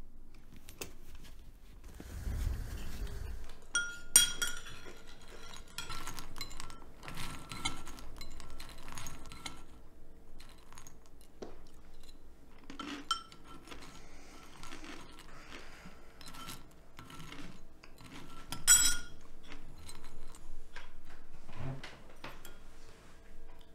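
Spoons clinking and scraping against ceramic cereal bowls, irregular clinks with a short ring, starting about four seconds in. A low rumble comes just before.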